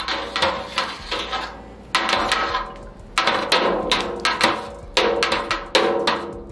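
A metal stirring utensil clanking and scraping against a steel pot as honey is mixed into a thick paste. Repeated clusters of ringing knocks come roughly every second.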